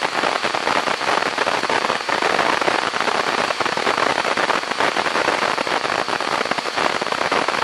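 Dense, steady crackling noise made of many fine rapid clicks, with no speech or music.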